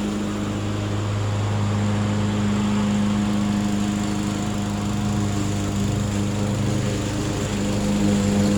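Murray 22-inch self-propelled 2-in-1 walk-behind lawn mower running steadily at an even pitch.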